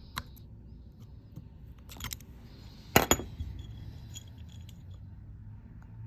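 A few light clicks and clinks of small hard objects being handled and set down, the sharpest about three seconds in, over a faint low hum.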